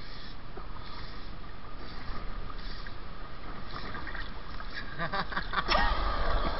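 Steady wash of river water and wind on the microphone. About five seconds in, a run of splashes and knocks comes in.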